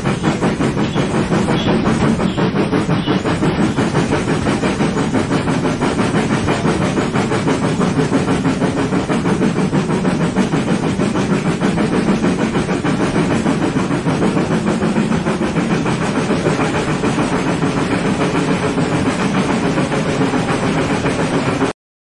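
Steam locomotive running with its exhaust chuffing in a fast, even rhythm. It cuts off suddenly at the very end.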